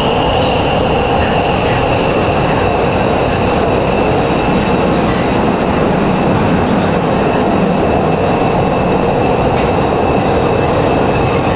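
Nanchang Metro Line 2 train running through a tunnel, heard from inside the car: a loud, steady rumble of wheels and running noise, with a thin high whine that drifts slowly lower in pitch. A faint click comes near the end.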